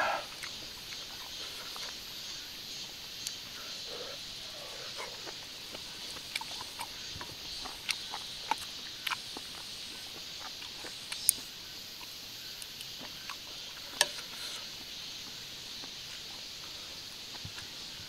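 Eating noodle soup: scattered soft clicks and smacks of chewing and utensils on the bowl, with a sharper click about 11 s and 14 s in. A steady high hiss of insects lies under it.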